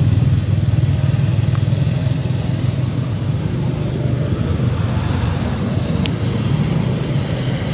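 A vehicle engine running steadily, a low hum, with a couple of faint clicks.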